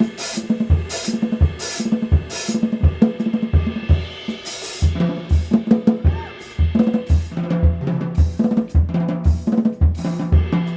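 Jazz drum kit played busily in a live band: steady bass drum and snare hits with hi-hat, and several cymbal crashes in the first half, over sustained low notes.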